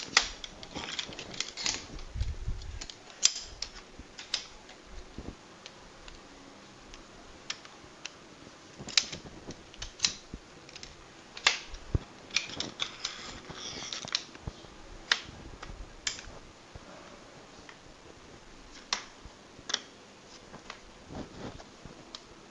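Aluminium folding chair frame being handled and fitted together: irregular sharp clicks and light knocks of the metal tubes and joints, with some rustling between them.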